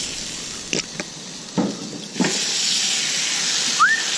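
Oil and marinated flank steak sizzling on the hot steel of a Camp Chef FTG600 flat top griddle. A steady hiss gets louder about two seconds in, with a few sharp clicks in the first half. Near the end there is a short whistle-like tone that rises and then falls.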